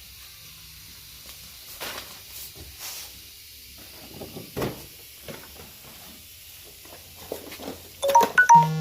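Scattered light clicks and knocks over a low steady hum as metal bearing parts are handled. Near the end a loud electronic melody of short chiming tones over a held low note begins.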